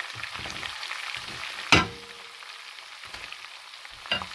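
Cooked rice being stirred into a sizzling lemon-and-spice tempering in a kadai on the stove, the spoon scraping through it. A sharp loud knock about halfway through and a smaller one near the end.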